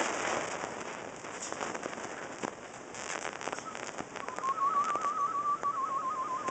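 Amazon parrot whistling one warbling note with a fast, even wobble, starting about two-thirds of the way in and lasting roughly two seconds, over a steady hiss with scattered light clicks.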